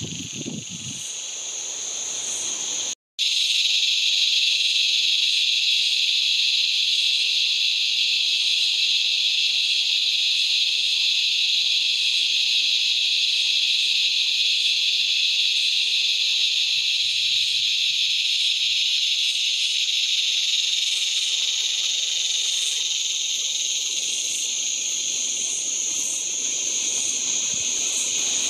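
Razor grinder cicada (Henicopsaltria eydouxii) calling: a loud, continuous, high buzz that holds steady, broken for an instant about three seconds in.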